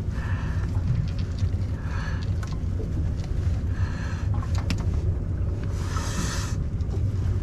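Boat motor idling with a steady low rumble, with short bursts of noise about every two seconds over it.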